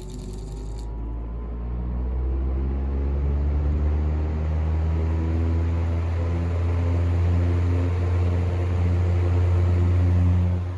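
Motor of a 12-inch Hunter Zephair D12 table fan running on high with the oscillation switched off, heard close up as a steady strong hum. It comes up to speed over the first couple of seconds, with a faint tone rising in pitch, and cuts off suddenly near the end.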